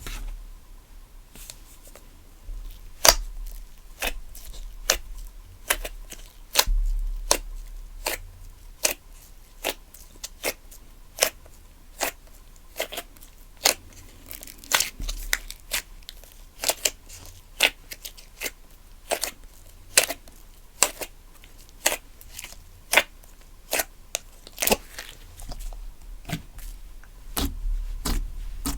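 Slime being pressed and worked by hand, giving off a string of short, sharp clicking pops at an irregular pace of about two a second, over a faint steady hum.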